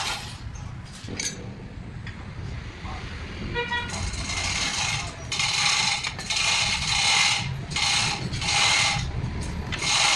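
Rhythmic scraping strokes, roughly one a second, beginning about four seconds in, with quieter clicks and clatter before them.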